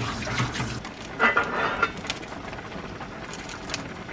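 Cola-braised chicken boiling hard in a shallow pan, a steady bubbling hiss, with a brief clatter about a second in and a few light clicks near the end.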